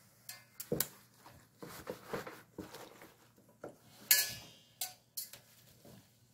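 Handling sounds as seasoned leaf mustard is packed into a plastic kimchi container: scattered light knocks and taps on the plastic and soft wet handling of the leaves. The sharpest knock comes about four seconds in.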